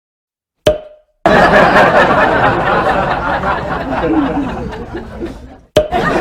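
A short dead silence broken by a sharp click, then a loud, busy hubbub of people's voices with some laughter that cuts off abruptly near the end and starts again after another click.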